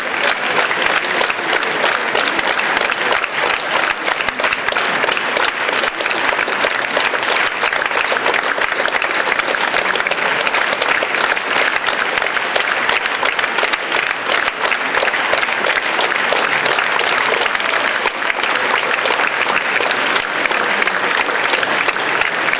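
Audience applauding, a dense, steady clapping that neither builds nor fades.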